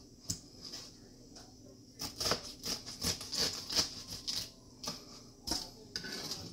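Kitchen knife cutting pineapple on a plastic cutting board: a single knock of the blade on the board, then a quick run of chops in the middle, and another knock near the end.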